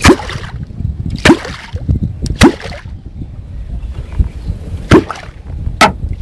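A catfish clonk (kwok) struck on the water surface five times at uneven intervals. Each stroke is a sharp slap followed by a deep gulp that falls in pitch, the sound used to draw catfish up to the bait.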